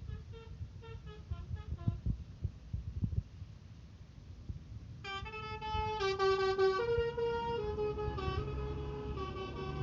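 Indonesian 'telolet' multi-tone bus horn. At first it gives quick short toots, about four a second. About halfway it breaks into a louder tune of several horn tones sounding together, stepping from note to note.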